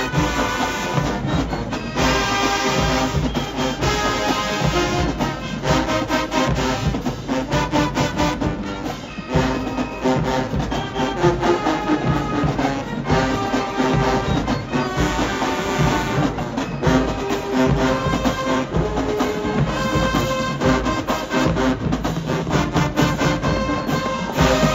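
HBCU show-style marching band playing: a full brass section of trumpets, trombones and sousaphones over a drumline.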